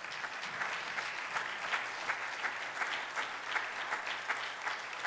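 Congregation applauding, a dense steady patter of many hands clapping that eases slightly near the end.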